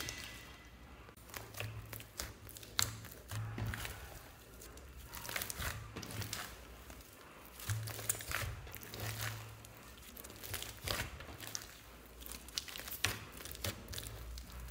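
Hands kneading, squeezing and pulling a large mass of sticky slime, giving irregular wet crackles, pops and squelches as the slime is pressed and stretched.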